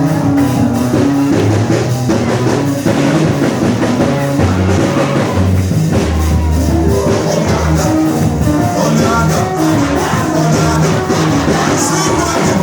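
Loud band music with drum kit, bass and guitar, with singing over it.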